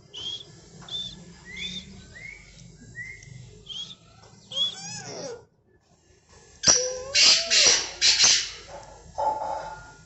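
Caged birds calling: a string of short whistled chirps and rising whistles, then a louder run of harsh, rough calls about seven seconds in.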